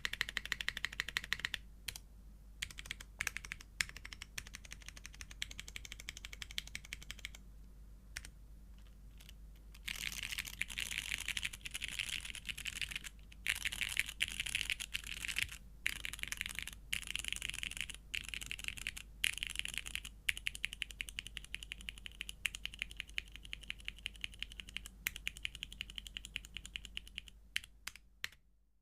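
Custom mechanical keyboard with lubed vintage Cherry MX Brown switches in a polycarbonate plate, with GMK keycaps, being pressed key by key. Quick runs of keystrokes are broken by a stretch of separate single presses and a short pause, and the sound fades out near the end.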